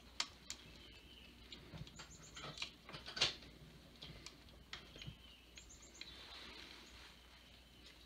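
Faint handling sounds as gloved hands fit the spacer plate and thread the crank arm pinch bolts in by hand: scattered light metal clicks and scrapes, one a little louder about three seconds in. There are also two brief high squeaks, one about two seconds in and one near six seconds.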